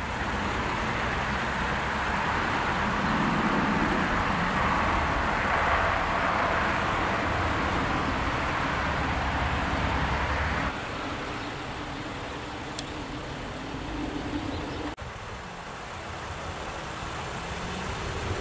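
Steady rush of road traffic, with tyre and engine noise swelling and easing. It drops abruptly about ten seconds in and shifts again near fifteen seconds.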